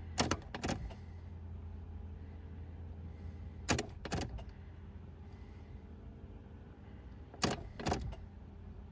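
Ignition key clicking in the lock of a Peugeot 306 HDI, with the keyring jangling, as the ignition is switched off and on: three pairs of clicks a few seconds apart. A low hum stops just after the first clicks.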